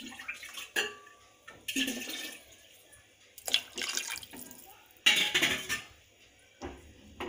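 Water poured from a small steel glass into an aluminium pressure cooker of rice and moong, in several separate splashing pours, with the metal glass clinking against the cooker.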